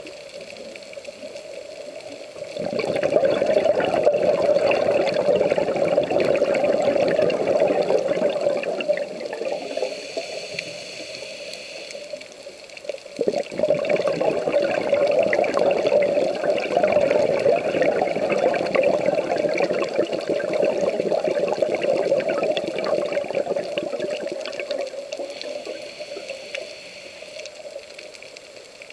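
Scuba diver's exhaled bubbles rising from the regulator past an underwater camera: two long stretches of bubbling, the first starting about two and a half seconds in and the second about thirteen seconds in, fading out near the end, with a quieter hiss between them.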